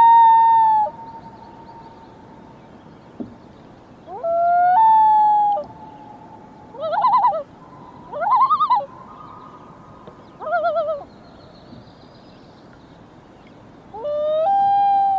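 A man's falsetto calls, imitating a bird: a whoop that jumps up and holds for about a second, given three times. In between come three short warbling calls that rise and fall.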